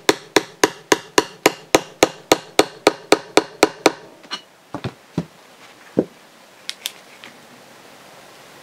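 Hammer tapping a metal seal installer tool with quick, even light taps, about four a second, driving a prop shaft seal into an outboard lower unit's bearing carrier. The tapping stops a little before four seconds in, followed by a few scattered knocks and clicks.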